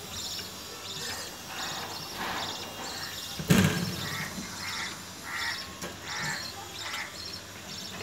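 Budgerigars chirping in quick pulsed trills, with a run of short soft peeps in the second half. One sharp knock about three and a half seconds in is the loudest sound.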